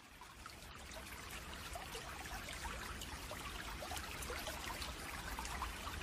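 Running water, a steady trickling and splashing that fades in over about the first second.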